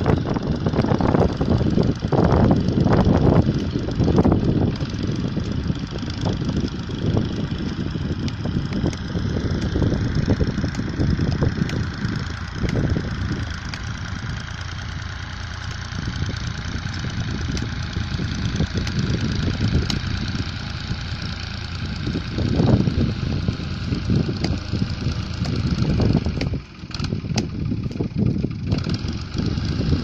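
Fiat 480 tractor's diesel engine running steadily under load while it pulls a plough through the soil, louder near the start and again about three quarters of the way through.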